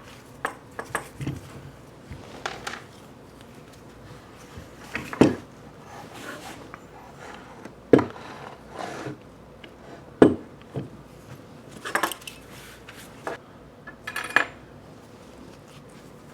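Small metal parts and hand tools clinking and knocking against each other and the workbench during disassembly of a small lathe headstock. It comes as a scattered series of separate sharp knocks and clinks, the loudest about five, eight and ten seconds in.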